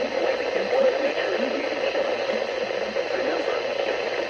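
A weather radio's speaker carrying a NOAA Weather Radio broadcast voice, thin and band-limited, over a steady hiss of static.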